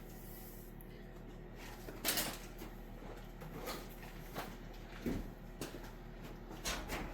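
A few scattered light knocks and clatters from parts and tools being handled, the sharpest about two seconds in, over a steady low hum.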